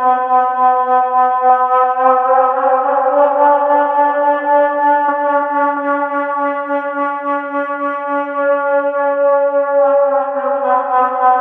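A sustained, reedy musical drone held on one pitch with many overtones, its loudness gently wavering. A few faint clicks sound in the first half.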